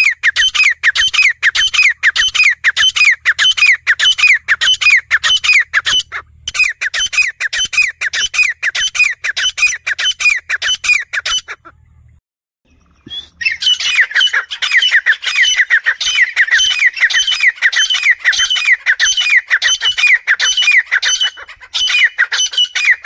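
Female grey francolin calling: a fast, even run of short squawking notes, each falling in pitch, about three a second. The run breaks off briefly about a quarter of the way in and for about two seconds near the middle, then resumes.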